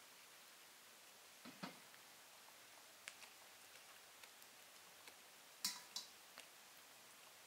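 Near silence with a handful of light, scattered clicks and taps, the loudest a quick double click about six seconds in.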